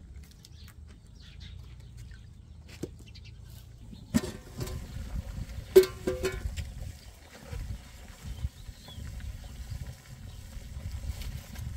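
Metal cooking pots and utensils knocking together twice, about four and six seconds in, the second knock loudest and leaving a brief ringing note, over a low irregular rumble.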